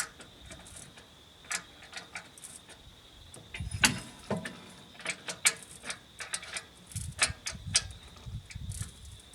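Irregular metallic clicks and clinks of a wrench and bolt hardware as nuts with lock washers are tightened to bolt a part back onto a wood chipper. The loudest knock comes about four seconds in, and denser clicking follows.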